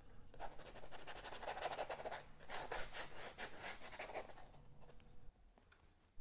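Quick, rhythmic scrubbing strokes of a painting tool working oil paint onto a canvas, about six strokes a second. It starts about half a second in and stops a little after four seconds.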